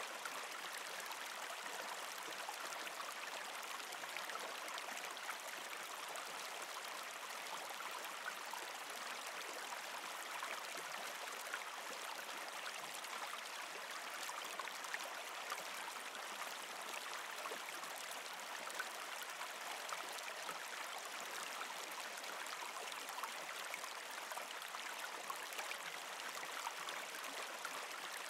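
Aquarium water trickling and bubbling: a steady, even trickle with many faint pops of bubbles.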